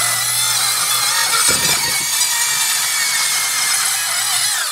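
Corded circular saw running steadily as it cuts through a sheet of plywood.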